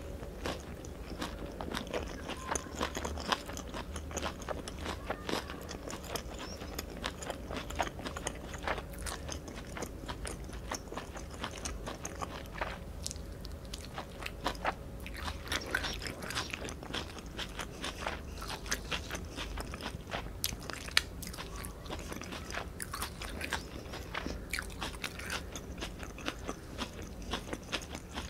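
Close-miked chewing of a mouthful of Vietnamese spring roll, with many small mouth clicks and crunches.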